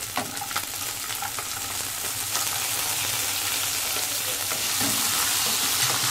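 Chopped onions sizzling in hot oil with cumin, garlic and dried red chillies in a non-stick kadhai. The sizzle grows louder a couple of seconds in, with a few light knocks from the wooden spatula in the first second or so.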